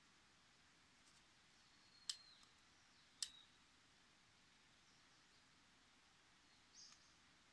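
Two sharp clicks about a second apart from a long-nosed gas lighter's trigger being pressed, each followed by a brief faint high ring. A short, faint hiss follows near the end.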